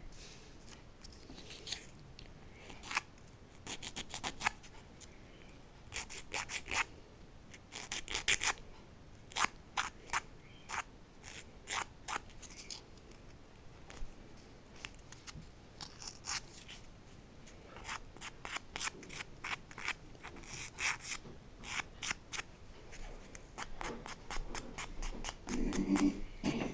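Emery-board nail file rasping in runs of short, quick strokes, filing off the overhanging end of a nail polish strip at the fingertip.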